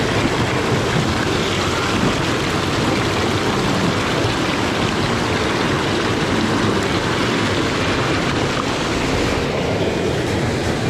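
Mountain stream water rushing: a steady, unbroken rush of flowing water.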